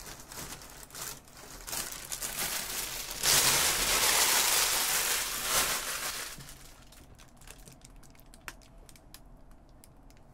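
Thin plastic bag crinkling and rustling, with light crackles at first, a loud stretch of dense crinkling lasting about three seconds, then a few faint crackles.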